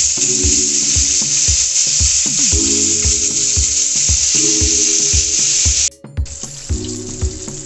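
Flour-battered fish fingers deep-frying in hot oil in a stainless steel pan: a loud, steady sizzle, over background music with a steady beat. About six seconds in the sizzle breaks off briefly and comes back quieter.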